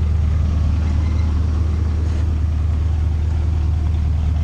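Pickup truck engine running steadily, a constant low drone with no change in speed.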